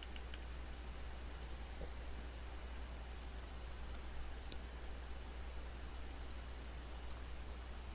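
Sparse, scattered computer mouse clicks over a steady low electrical hum and faint hiss.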